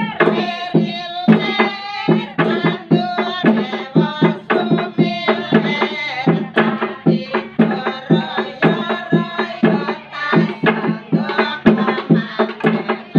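Several wooden pestles (alu) knocking in an interlocking rhythm on a hollow wooden rice mortar (lesung), a Javanese gejog lesung performance. The strokes come several a second and steadily, each with a ringing woody tone.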